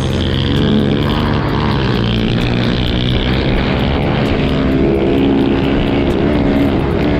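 Dirt bike engine running under throttle while riding, its pitch rising and falling as the throttle opens and closes, with wind rushing over the bike-mounted camera's microphone.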